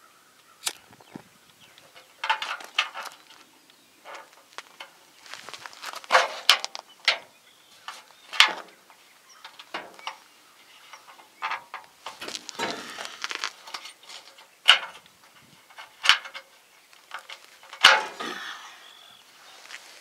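Close handling noises: scattered sharp clicks and short bursts of rustling as hands work on wiring and a sleeve brushes near the microphone.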